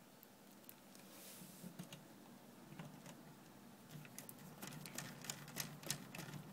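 Small screwdriver driving a screw into the back panel of a SpeakerCraft MZC-66 amplifier: faint, irregular ticks and scrapes of the tool in the screw head, coming more often in the second half.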